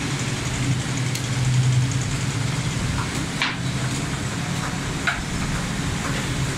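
Butcher knives knocking on wooden chopping blocks as raw chicken is cut, a few light knocks scattered through, over a steady low mechanical hum.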